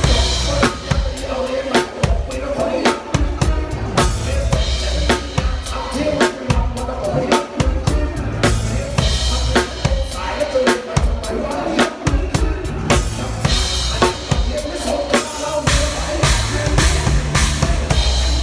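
Drum kit played along to a backing track of a pop song: a steady beat of kick drum and snare hits over the recorded music.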